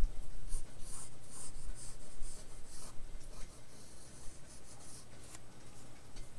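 Pencil scratching across drawing paper in many short, quick sketching strokes, louder in the first half.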